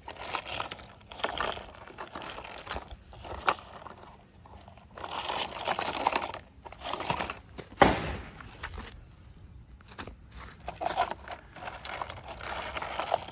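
Plastic toy backhoe loader pushed by hand over stony dirt: its wheels and front bucket scrape and crunch on the grit and pebbles in irregular bursts, with one sharp knock about eight seconds in.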